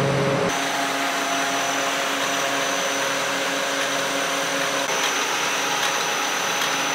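Foam sheet production line running: a steady mechanical hum and rush from the rollers and motors, with a thin high whine over it. The sound shifts abruptly about half a second in and again about five seconds in.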